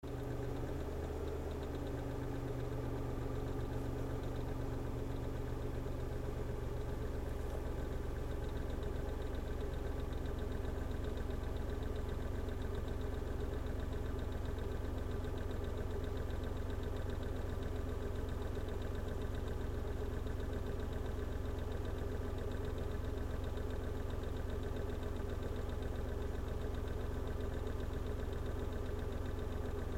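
Engine idling steadily, carrying a noise taken to be abnormal. Its low hum shifts in pitch during the first few seconds, then settles.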